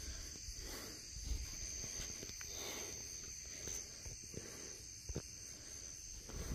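Steady high-pitched chirring chorus of night insects such as crickets, with a few soft knocks, such as footsteps, along the way.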